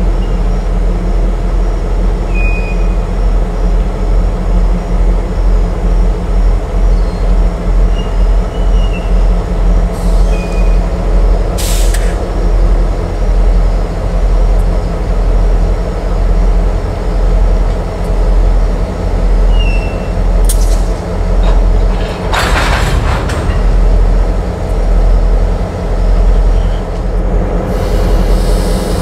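Freight cars of a local freight train rolling slowly past, a steady low rumble rising and falling about once a second, with a few brief high wheel squeals and several short hissing bursts, the longest about three-quarters through.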